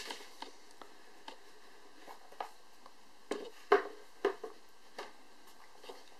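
Cardboard retail box of a Samsung Galaxy Nexus phone being handled and opened, the lid lifted off: scattered light taps and scrapes of card, the loudest a few sharp knocks between about three and four and a half seconds in.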